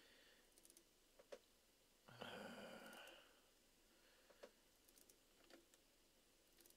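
Near silence, with a few faint mouse clicks and a soft breath about two seconds in.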